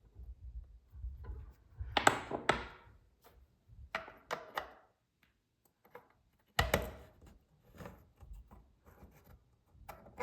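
Faucet repair parts being pushed and worked together by hand: a series of irregular clicks and knocks, the sharpest around two and seven seconds in.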